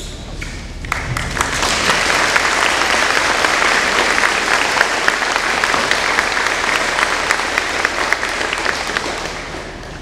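Audience applauding. The clapping builds up about a second in and dies away near the end.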